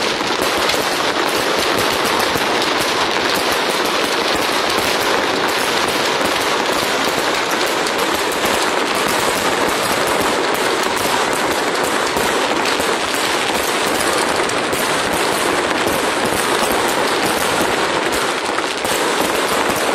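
Fireworks display: a dense, continuous crackling and popping from many shells bursting at once, with no let-up.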